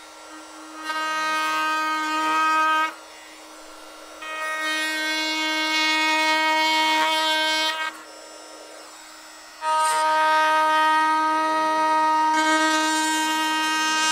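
Makita DTM52 cordless oscillating multitool running with a steady buzz while its Starlock two-edged knife cuts through a carpet tile. The sound swells louder and harsher in three stretches of a few seconds each, dropping back between them.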